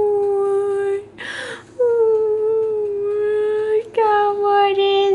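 Pug whining in long, steady, high-pitched notes while begging for food, with a quick noisy breath about a second in and a short break near the end.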